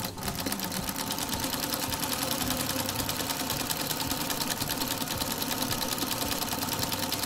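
Industrial straight-stitch sewing machine fitted with a buttonhole attachment, running at a steady speed with a fast, even stitching clatter as it sews a buttonhole.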